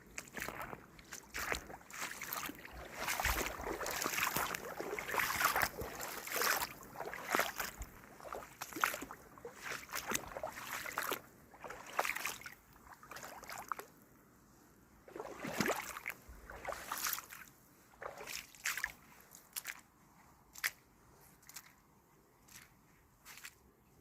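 Footsteps in waterproof boots sloshing and splashing through shallow floodwater, an uneven run of steps, densest and loudest in the first several seconds, then sparser and fainter.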